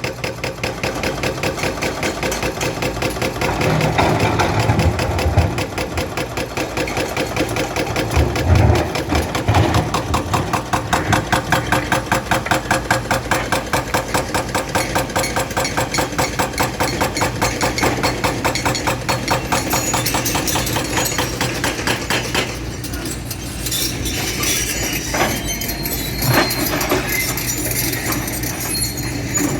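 Diesel engines of tracked hydraulic excavators working, surging louder under load a few times, with a regular pulsing through the middle. Near the end come a few sharp metallic knocks.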